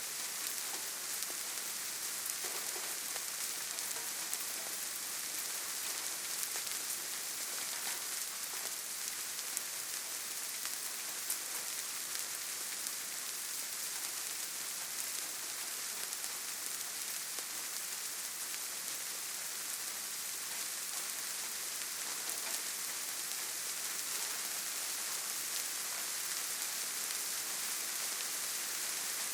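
Steady light rain pattering on leaves and grass: an even hiss of many small drops, with a scatter of faint individual drop ticks.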